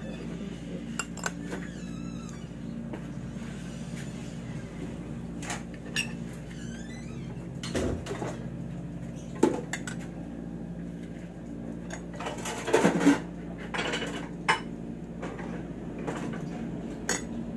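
Fork and spoon clinking now and then against a ceramic dinner plate while eating, with a short busier cluster of clatter about three quarters of the way through, over a steady low hum.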